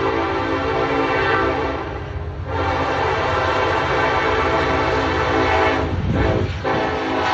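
Locomotive air horn played as a horn show: a chord held for about two seconds, a brief break, a longer blast of about three seconds, a short dip, then sounding again near the end, over a steady low rumble from the train.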